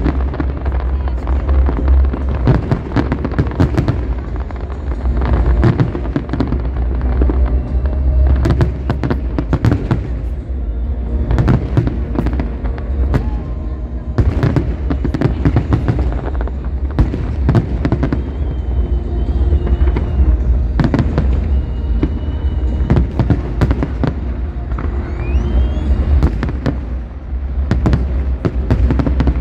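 A fireworks display with shells bursting in quick, continuous bangs and crackles over a low rumble. Music plays along underneath.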